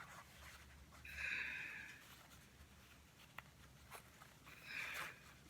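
Packaging being unwrapped by hand: two short, faint rustles, one about a second in and one near the end, with a few light clicks between them.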